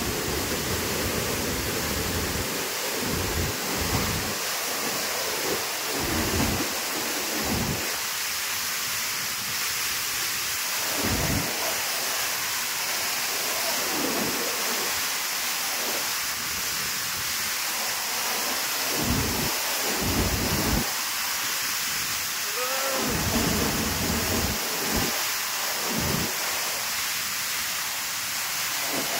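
Steady rushing roar of a tall waterfall plunging into its pool, with irregular low rumbles of wind buffeting the microphone coming and going throughout.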